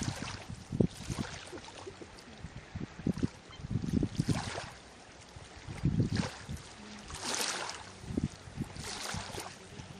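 Water lapping and splashing in irregular small waves, a short splash every second or two.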